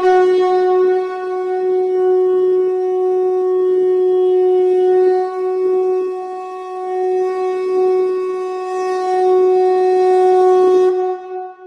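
Conch shell (shankh) blown in one long, steady blast at a single pitch. It cuts off about eleven seconds in, leaving a short fading tail.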